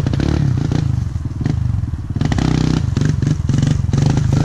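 Dirt bike engines running, with one revving up a little over two seconds in and running louder from then on.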